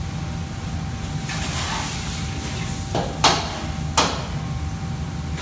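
Steady low noise of a commercial wok range and extractor hood, with a brief hiss about a second in, then three sharp metal clanks around three and four seconds in from a ladle striking the wok.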